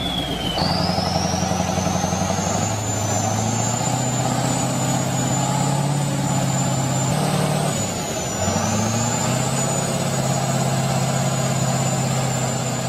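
KrAZ-255B heavy truck's diesel engine running hard under load. Its note dips and picks up again a couple of times, and a thin high whine sits above it.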